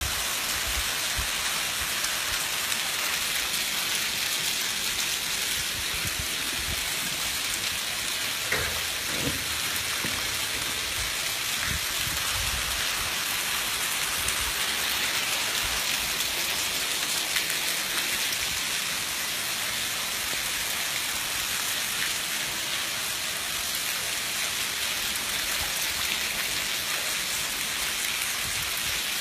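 Heavy rain falling steadily onto a paved courtyard, a dense even hiss with no let-up.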